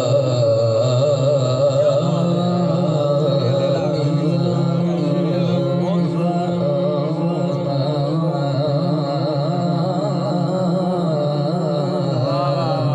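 Male Quran recitation (tilawat) sung into a microphone: long, drawn-out melodic phrases whose held notes waver and bend in ornamented turns, without a break.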